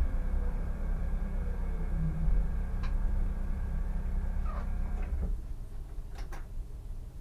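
Solaris Tramino S105p tram slowing to a stop, heard from the driver's cab: a low rumble from the running gear with the motor whine falling in pitch. The rumble dies away about five seconds in as the tram comes to rest. A few sharp clicks follow, the last two close together near the end.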